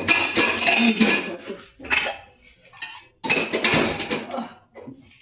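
Spoon scraping and clattering against a metal bowl in three bursts, typical of puffed rice being mixed with oil and spices for jhal muri.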